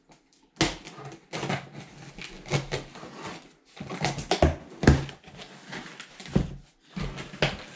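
Boxes and packaging being handled and opened: an irregular run of knocks, bumps and rustling, with the sharpest knock about five seconds in.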